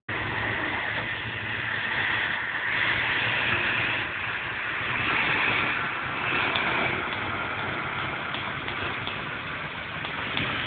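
Electric locomotive pulling an express train out of a station at low speed as it passes close by, giving a steady whirring hiss with a low hum underneath, then the coaches rolling past with a few light clicks of wheels over the rails later on.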